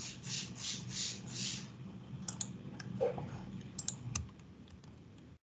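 Typing on a computer keyboard and clicking, faint: a quick run of soft keystrokes, then scattered sharper clicks. The sound cuts off suddenly near the end.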